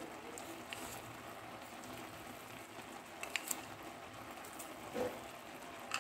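Faint, steady crackling hiss of rice cooking in an uncovered pan on the stove, with a few light clicks in the second half.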